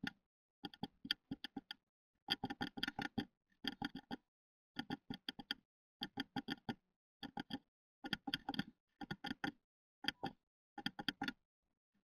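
Great tit tapping on the wood inside the nest box: quick clusters of sharp taps, about one cluster a second, with short silent gaps between.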